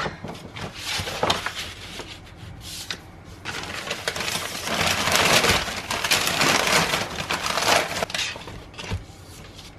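Newspaper rustling and crinkling as it is handled and unwrapped from dried ide, along with stiff drawing paper being smoothed and moved. The crackling is loudest in the middle and drops away near the end.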